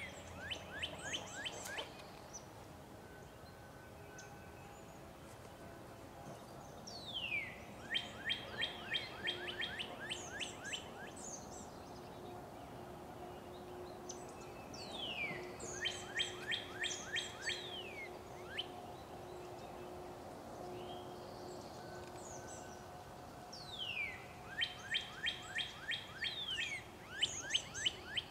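A songbird singing in the woods. Each phrase is about three seconds long: a clear downslurred whistle, then a quick series of short sliding notes. The phrase repeats about every eight seconds, over fainter chirps of other birds.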